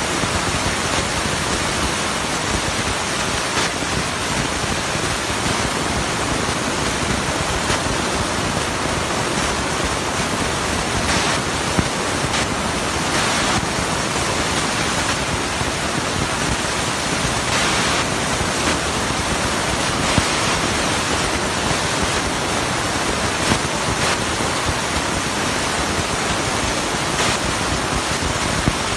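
Steady, loud rushing hiss like rain or running water, with a few faint ticks in it.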